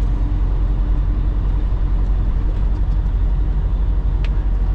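Inside a semi truck's cab at highway speed: the diesel engine's steady drone under road rumble, with a single light click about four seconds in.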